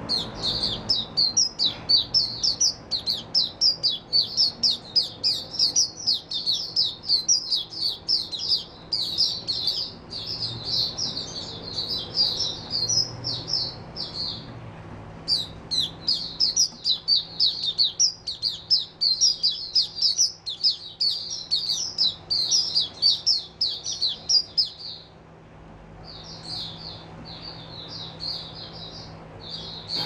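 A caged white-eye (mata puteh) singing a long, fast, high twittering song, in two long unbroken runs with a short break about halfway through. After a brief pause the song comes back softer near the end.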